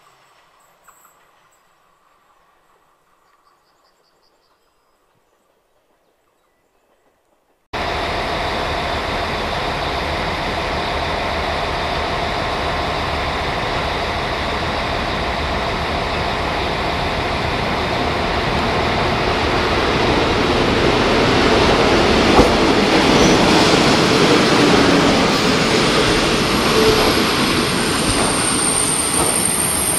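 Faint at first, then abruptly loud: a ČD Regionova diesel railcar set (class 814/914) rolling into a station past the platform, its rumble growing louder as it comes close. Near the end a thin, high squeal from the wheels sets in, with a few sharp clicks.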